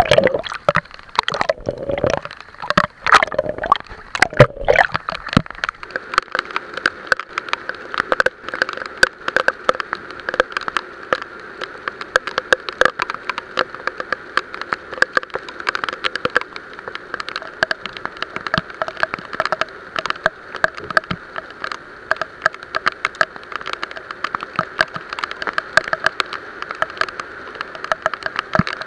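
Heavy typhoon rain pelting the water surface in a dense, steady patter of drops, with a few seconds of water sloshing and splashing at the start.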